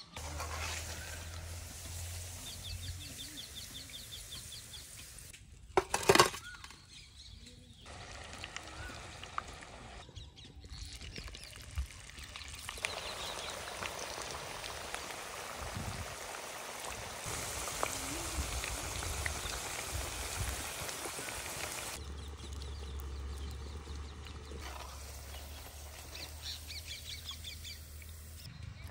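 Onion vadas deep-frying in hot oil, a steady sizzle and bubbling, with birds chirping now and then and one sharp knock about six seconds in.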